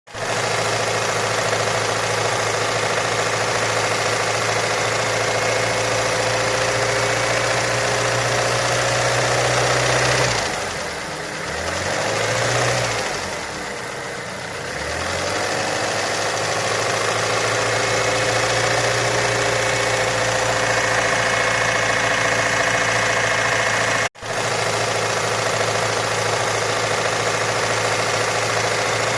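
Ford Mondeo Mk4 2.3-litre four-cylinder petrol engine idling with a knock in the engine. The engine note dips and wavers for a few seconds in the middle, and the sound breaks off for an instant near the end.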